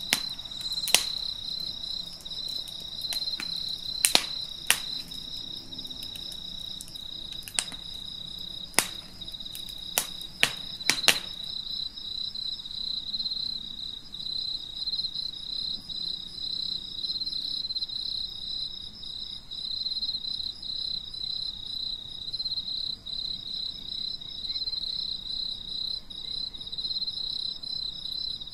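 Insects trilling steadily in a high, fast-pulsing trill. About a dozen sharp taps or clicks, louder than the trill, are scattered through the first eleven seconds and then stop.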